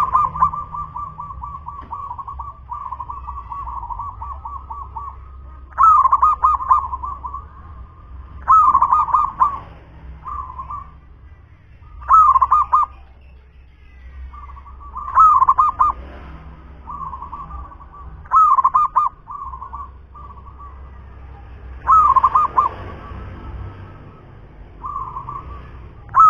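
Local zebra dove (perkutut) singing: runs of soft, rolling coos, broken about every three seconds by a louder phrase of rapid cooing notes.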